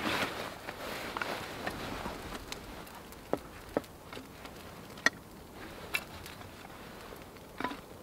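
Thin split kindling sticks knocking against each other and the wooden board as they are laid one by one over a small birch-bark fire, about five sharp clacks, with soft rustling in the first couple of seconds.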